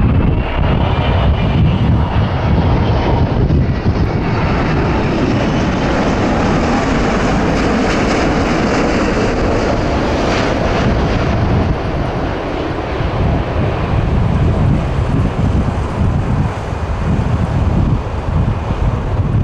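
Airbus A380's four Engine Alliance GP7200 turbofans at approach power as the airliner passes low on final approach: a loud, steady jet roar with a faint whine over it in the first few seconds. Gusts of wind rumble on the microphone.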